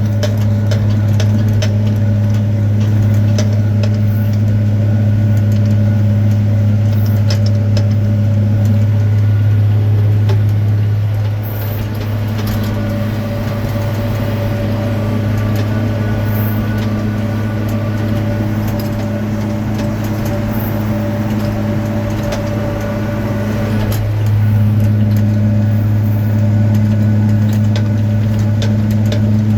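Tractor engine running steadily at a constant pitch while pulling a baler, a little quieter for about ten seconds midway.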